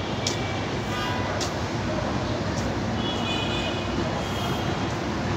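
Steady street traffic noise: a continuous wash of cars and other road vehicles running on the road beside the tram tracks.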